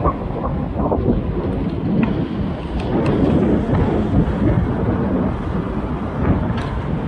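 Wind buffeting the microphone on a moving bicycle, an unsteady low rumble, mixed with road noise.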